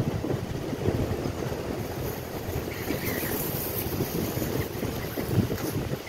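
Wind buffeting the microphone in a steady, gusting rumble over the wash of small waves on the shore, with a few faint gull calls about three seconds in.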